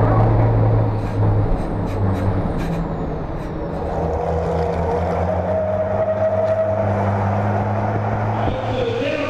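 Racing truck's turbodiesel engine running hard at steady high revs, heard from an onboard camera, with a few short clicks about two seconds in.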